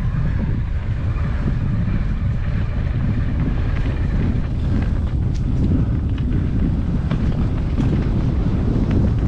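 Wind buffeting the microphone as a steady low rumble while riding down a mountain trail, with scattered faint clicks and rattles.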